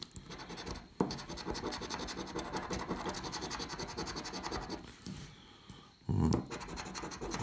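A large coin scratching the latex coating off a scratchcard in rapid strokes, pausing about five seconds in. Just after six seconds there is a brief, louder thump.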